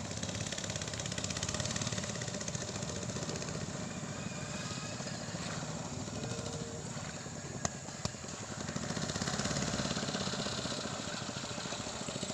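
A small engine running steadily nearby, its rumble swelling a little near the end, with two sharp clicks a half-second apart past the middle.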